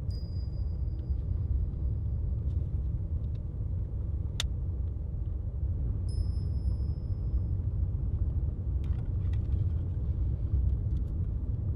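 Steady low rumble of road and engine noise inside a moving car's cabin. A thin high tone sounds at the start for a couple of seconds and again about six seconds in, with a sharp click in between and a few small clicks near the end.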